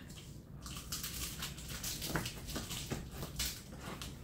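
Irregular small crunching and scraping as thawed fish are cleaned by hand, over a steady low rumble.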